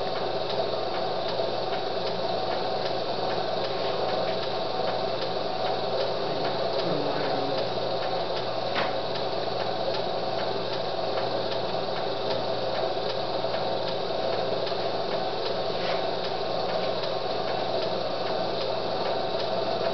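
Homemade HHO electrolysis cell running: its gas bubbling steadily through the water in a bottle bubbler, with a steady electrical hum under it. The cell is still cold and not yet at full output.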